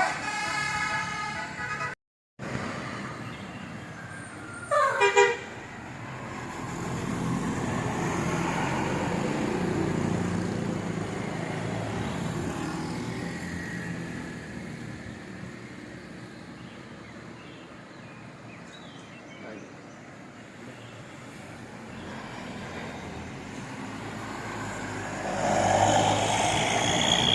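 A multi-tone telolet (basuri) bus horn plays stepped notes, then the sound cuts out briefly. About five seconds in, a short, loud horn note slides down in pitch. Then a heavy vehicle's engine and tyres swell as it drives past and fade, and another vehicle approaches near the end.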